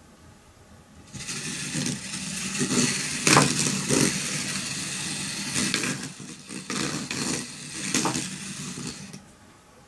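Two toio Core Cube robots driving across a wooden table, their small electric wheel motors whirring steadily, starting about a second in and stopping near the end, with a few short louder knocks along the way.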